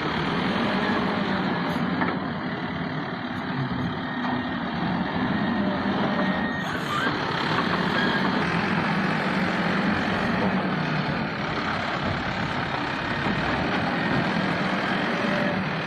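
Diesel engine of heavy earthmoving machinery running steadily while working.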